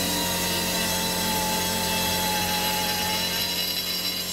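Handheld rotary tool with a grinding bit running steadily against the aluminium engine case of a BFA 306 Vespa engine, its whine sagging slightly in pitch as it bites. It is taking material off the case to give the gearbox's Christmas-tree gear cluster more clearance.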